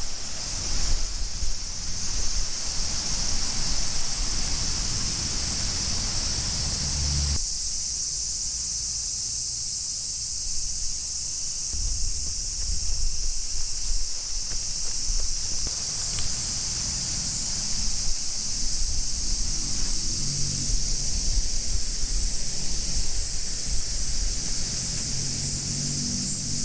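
A chorus of cicadas, a steady high drone. A low rumble of wind on the microphone runs under it and stops about seven seconds in.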